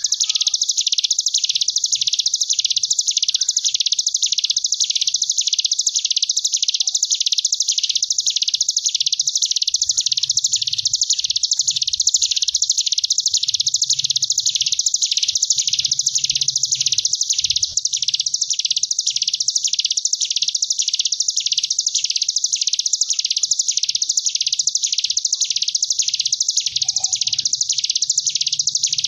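Ciblek gunung (hill prinia) giving its 'ngebren' song: one long, unbroken, high-pitched buzzing trill like a wasp, swelling and fading in waves about one and a half times a second.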